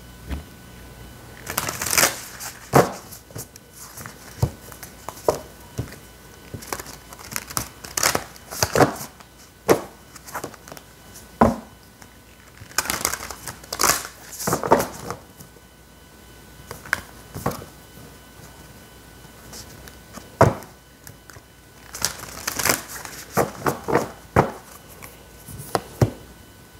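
A deck of oracle cards being shuffled and handled: quick papery slaps, flicks and rustles of card on card, coming in spells of a few seconds with quieter pauses between.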